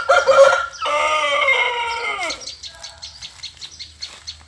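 Fighting rooster crowing once, a loud call lasting about two and a half seconds that falls in pitch at the end, followed by a run of quick short clucks.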